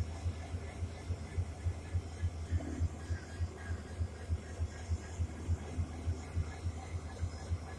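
WDP-4D diesel locomotive's EMD 16-710 two-stroke V16 engine idling after start-up, a steady low hum with an even throb several times a second.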